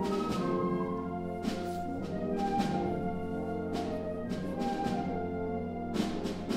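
School concert band playing held, full chords, with several percussion strokes cutting through the sound.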